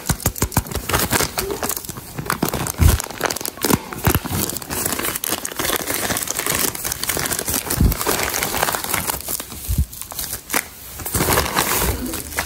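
Plastic packaging crinkling and crumpling, with some tearing, as a parcel is unwrapped by hand.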